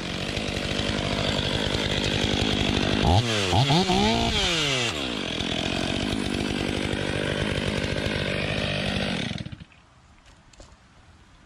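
Two-stroke gas chainsaw held at high speed. Its revs rise and fall sharply about three seconds in, then run steady until the engine cuts off suddenly about nine and a half seconds in.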